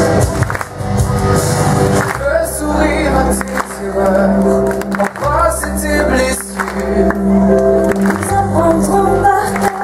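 Music with singing from a stage musical: a sung melody over a backing track whose deep bass notes change every few seconds.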